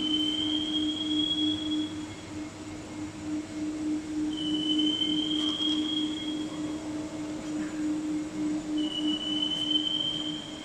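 500 litre high-speed twin-paddle powder mixer running empty: a steady motor hum, with a high squeal rising slightly in pitch that comes three times, about four and a half seconds apart.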